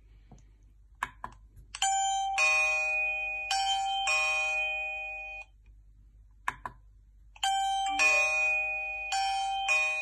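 Wifi video doorbell's button clicked, each press followed by an electronic four-note ding-dong chime tune; it happens twice, the second chime starting about five and a half seconds after the first.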